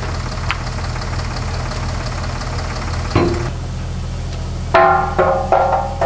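Air-powered Eimco rocker shovel working, with a steady low machine hum underneath. A single knock comes about three seconds in, then a quick run of four ringing metallic clangs near the end.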